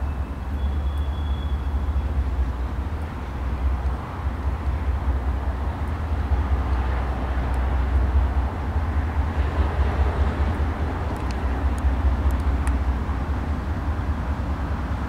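Three GE diesel-electric freight locomotives, a C40-8W leading two AC44CWs, pulling away at the head of an intermodal train, their diesel engines working under load with a deep, steady drone.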